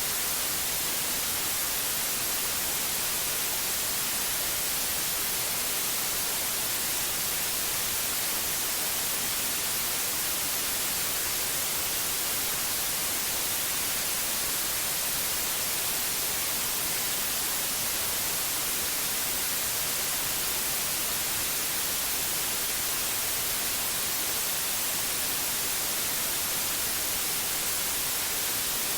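White noise for sleep: a steady, unchanging hiss, brightest in the high end, with no drops, calls or other events in it.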